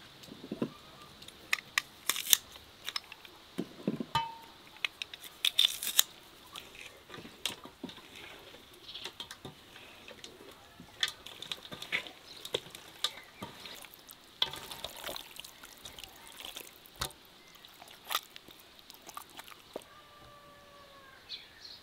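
Scattered clicks, clinks and wet squelches of metal spoons scraping a garlic mixture onto raw marinated quails in an enamel bowl. The loudest sharp clicks come about two and six seconds in.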